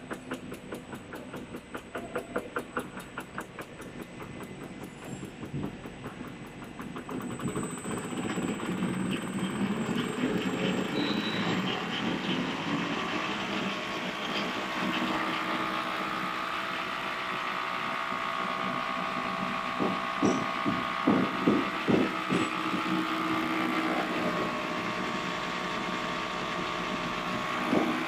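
Label rewinding machine running, its label web feeding over the rollers onto the rewind shafts. It clicks rapidly and evenly at first, then builds into a louder steady mechanical hum with a motor whine, with a few knocks about two-thirds of the way through.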